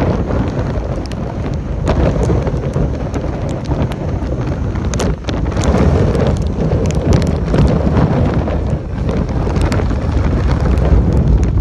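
Gusty tropical-storm wind buffeting the microphone: a loud, low rumbling noise that swells and eases, with scattered sharp crackles through it.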